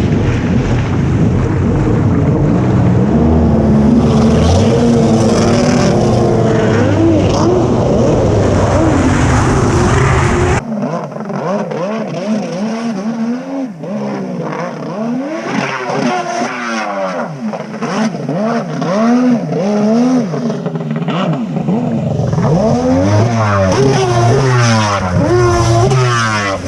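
Stand-up jet ski's swapped-in Kawasaki 1100cc two-stroke triple engine run hard and loud, its pitch climbing under throttle. About ten seconds in, the sound changes abruptly. From then on the engine note rises and falls again and again as the throttle is worked on and off.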